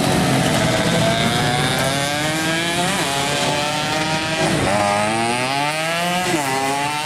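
Tuned underbone race motorcycle engines running hard, the pitch climbing and then dropping sharply about three times as the rider shifts up through the gears.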